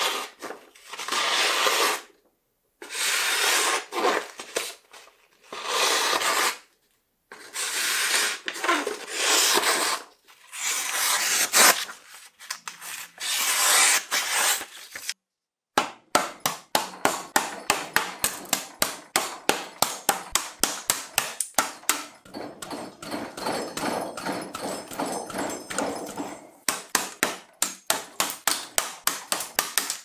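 A restored long kitchen knife slicing through a sheet of paper in about seven separate hissing cuts. From about halfway on, the knife strikes a wooden board in rapid sharp strokes, about four a second, testing the edge for dents.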